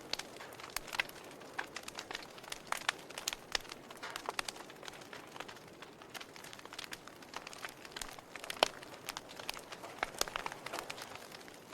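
Wood fire crackling: irregular sharp pops and snaps, several a second, over a soft hiss of burning, with one louder pop about three-quarters of the way through.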